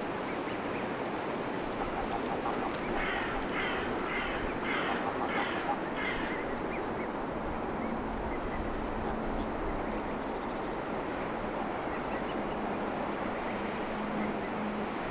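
A crow cawing about six times in quick succession, roughly two calls a second, over a steady background rush.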